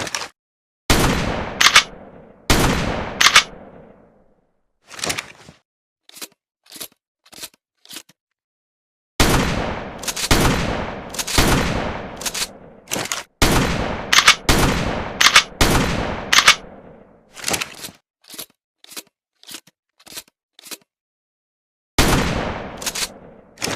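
Pump-action shotgun firing shot after shot, each blast followed by the sharp metallic clack of the pump being racked. Between the groups of shots comes a run of short, light clicks.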